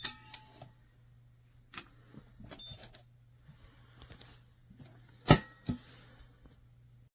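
Metal pistol safe being worked: short high electronic beeps from its keypad, and sharp metallic clicks and clanks of its lid and latch. The loudest clank comes a little past the middle, with a smaller one just after. A faint low hum runs underneath.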